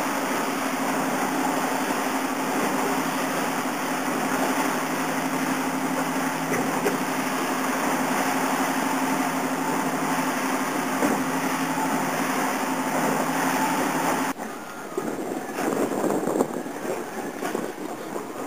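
Boat engine running steadily under way, a constant drone with an even hum. About fourteen seconds in it cuts off abruptly, leaving quieter, uneven wind and water noise.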